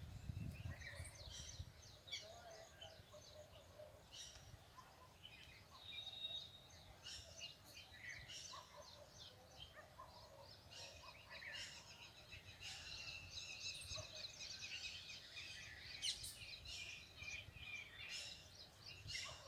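Parrots calling: many faint, short, high chirps and squawks, coming thickest in the second half, over a low background rumble. A female parrot calling to her young.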